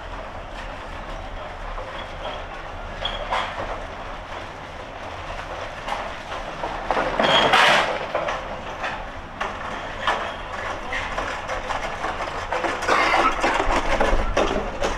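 Continuous urban background noise with scattered clicks and clatter, swelling to a loud rush about halfway through and rising again near the end.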